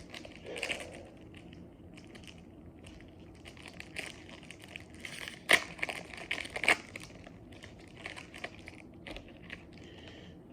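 Foil Pokémon booster pack wrapper crinkling and tearing open in the hands, with cards shuffling; a run of irregular crackles, sharpest about halfway through.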